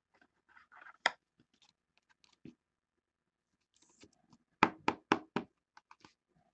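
Hands handling baseball cards and plastic card holders at a table: soft rustling and a few clicks, then four quick knocks in a row, about four a second, a little past the middle.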